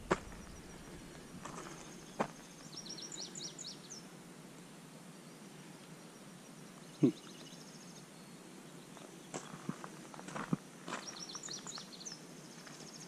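Footsteps of a hiker walking on a trail, faint against outdoor quiet. A small songbird twice sings a quick run of high notes, about three seconds in and again near the end. A single sharper knock comes about halfway through.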